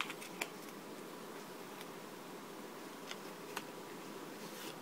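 A few brief, faint clicks and rustles of a plastic LEGO wing piece and a paper sticker sheet being handled, over a steady low background hum.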